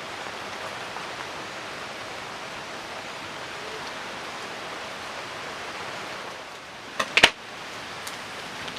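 Steady rain falling, an even hiss. Two sharp clicks come close together about seven seconds in.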